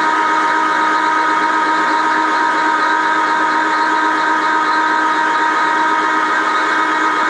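A 1955 Meuser metal-turning lathe running under cut, turning an aluminium workpiece: a steady whine of several held tones over an even cutting hiss.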